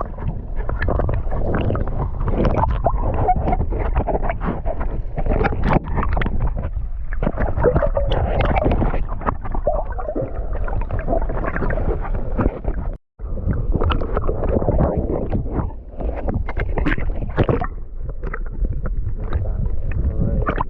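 Water sloshing and splashing around a paddle board with wind buffeting the microphone, rough and irregular throughout; the sound cuts out for an instant about two-thirds of the way through.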